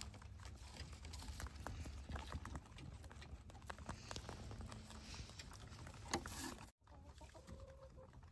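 A young rabbit chewing dry hay: many small, quick crunching clicks over a low rumble. The sound drops out for a moment near the end.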